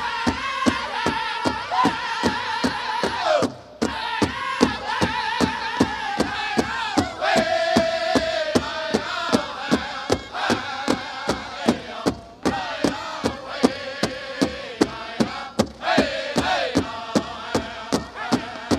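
Powwow drum group: a big drum struck in a steady beat, about two and a half beats a second, under a chorus of singers chanting in high-pitched unison.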